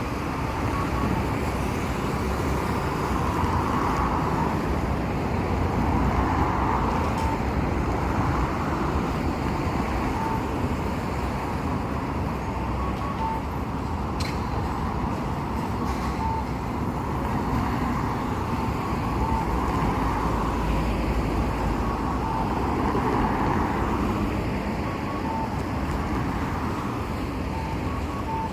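Street traffic and Toden Arakawa Line trams passing a level crossing: a steady rumble that swells and fades, with faint short high beeps recurring about every three seconds.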